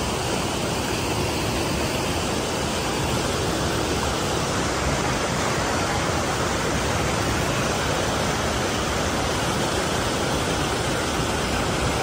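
Fast, turbulent mountain river rushing over rocks in white-water rapids: a steady, unbroken noise of water.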